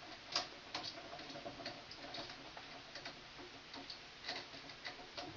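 Faint, irregular small clicks and ticks of a screwdriver tightening a wire loop under a light switch's terminal screw, with metal tool and switch handling.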